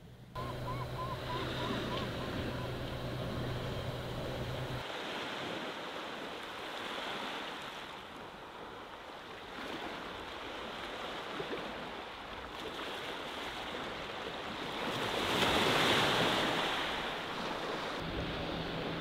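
Ocean waves washing on the shore, one wave breaking louder about three quarters of the way through. A low steady hum sits under the first few seconds.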